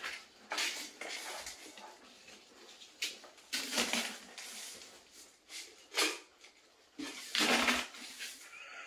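Pringles crisps crunching as they are chewed, mixed with crisps rattling and scraping in a cardboard Pringles tube as it is shaken: a string of irregular crackly bursts, the longest near the end.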